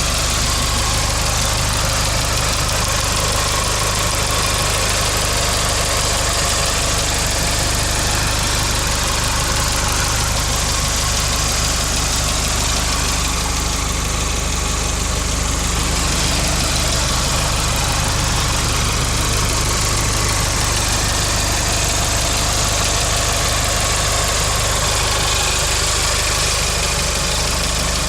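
1998 Mitsubishi Eclipse GST's turbocharged 2.0-litre four-cylinder idling steadily with a ticking from the valvetrain, which the owner takes for lifter tick.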